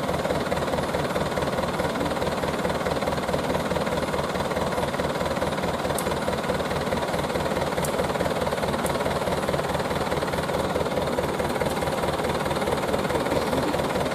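An engine idling steadily, with an even, rapid low throb.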